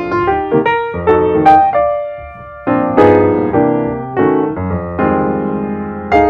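Background music: piano or electric piano playing chords and melody notes, each struck note ringing and fading.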